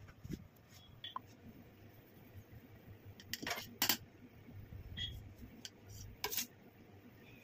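A long metal cake knife knocking on a granite countertop: two sharp clinks close together about three and a half seconds in, and a third a little after six seconds.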